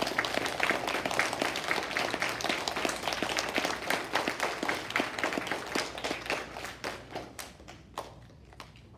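A group of schoolchildren clapping, dense at first and thinning to scattered single claps over the last few seconds.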